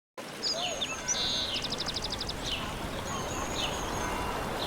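Quiet village ambience: small birds chirping and calling over a steady low background noise, with one bird giving a rapid trill of evenly spaced notes about two seconds in.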